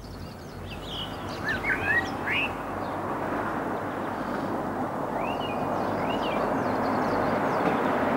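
A car approaching, its engine and tyre noise growing steadily louder, while birds chirp a few short calls over it.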